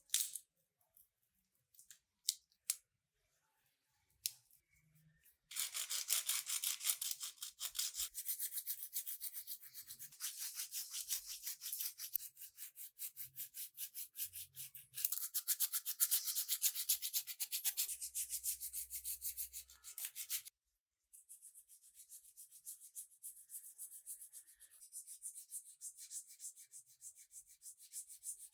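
Fast, even back-and-forth rubbing strokes on a surface, several a second, as in hand sanding or scrubbing during restoration work. A few light clicks come first. The strokes stop for a moment about two-thirds of the way through and then resume more softly.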